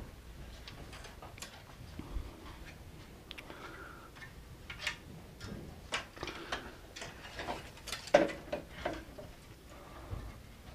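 Light, irregular clicks and knocks of hard plastic parts as the end piece of an HP Designjet plotter's carriage rail assembly is handled and fitted. They grow busier in the second half, with the loudest knock about eight seconds in.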